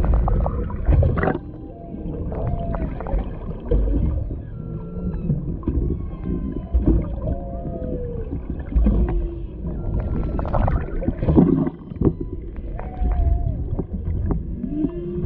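Humpback whales singing underwater: many short moans and whoops that rise and fall in pitch, one after another, over a low rumble of water against the camera housing.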